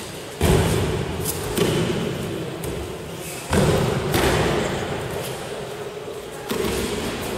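Bodies hitting the gym mats as aikido throws land: four heavy thuds, each dying away in echo. The loudest come about half a second in and about three and a half seconds in.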